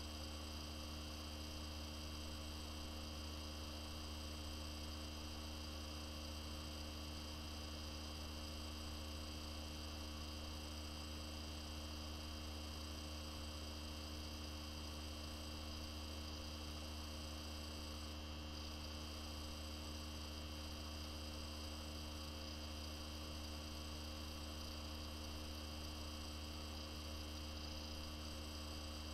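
Steady electrical hum, a deep drone with several fainter steady higher tones over it and a light hiss, unchanging throughout.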